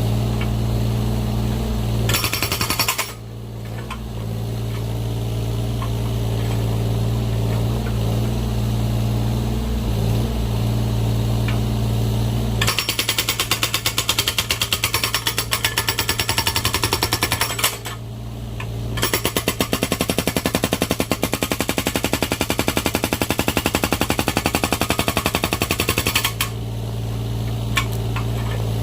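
Excavator-mounted hydraulic breaker hammering in rapid, evenly spaced blows as it splits firewood logs, over the steady run of the excavator's engine. There is a short burst about two seconds in, then two long runs of hammering in the second half with a brief break between them.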